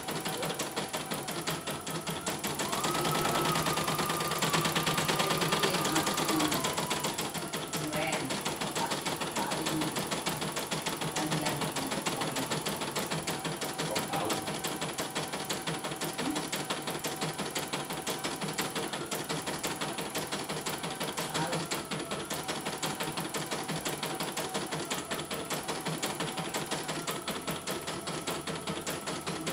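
CNY E900 portable computerized embroidery machine stitching at high speed, its needle bar hammering out a fast, even run of stitches while the hoop steps the fabric. This is a test run, with the machine working again after a mainboard replacement. A few seconds in, the sound grows louder for a while with a whine that drops slightly in pitch.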